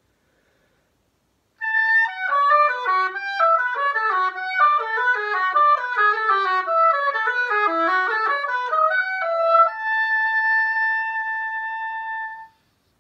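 Solo oboe playing a fast run of short notes that leap up and down, then holding one long high note for about three seconds before stopping.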